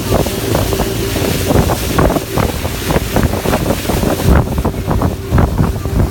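Wind buffeting the microphone in loud, uneven gusts over the sea, with a steady low hum underneath that fades about four seconds in.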